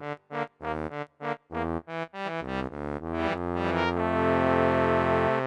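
Synthesizer keyboard music: a run of short, detached notes, then a long held chord that cuts off about five seconds in.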